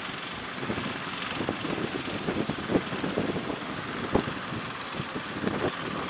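Wind buffeting the microphone in irregular gusts over the steady rushing wash of breaking sea surf.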